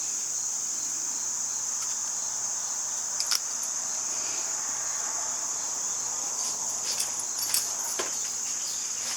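A steady high-pitched drone, of the kind an insect chorus makes, with a few light clicks and taps about a third of the way in and again near the end.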